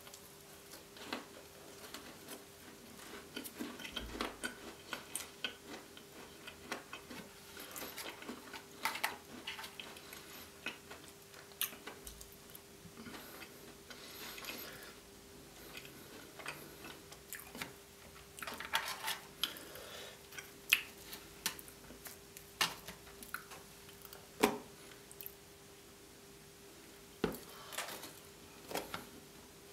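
Close-miked chewing of crunchy gingerbread with icing: irregular crisp crunches and small mouth clicks, uneven in loudness.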